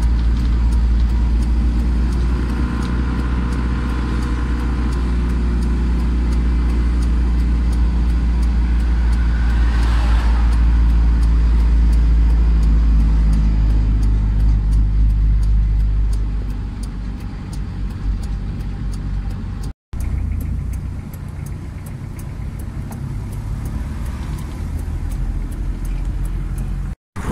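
Engine and road noise of a slow-moving car, a heavy steady low rumble; a rushing swell comes about ten seconds in, and the sound grows quieter after about sixteen seconds. It breaks off for an instant twice.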